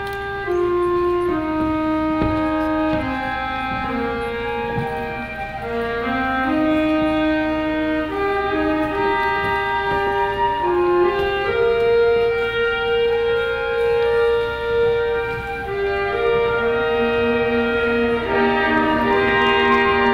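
High school concert band playing, woodwinds prominent in slow, held melodic lines over sustained lower notes, growing a little louder toward the end.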